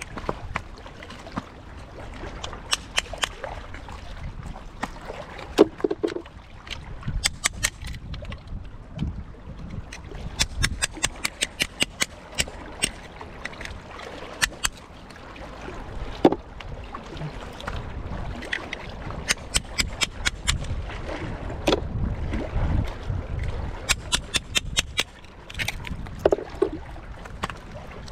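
Small waves washing and sloshing among oyster-encrusted shoreline rocks, with wind on the microphone and many sharp clicks and crackles, some in quick runs.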